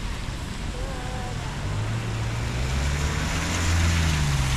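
A motor vehicle's engine passing close by, its low hum coming in about halfway through and loudest near the end, over a steady hiss of rain and wet street noise.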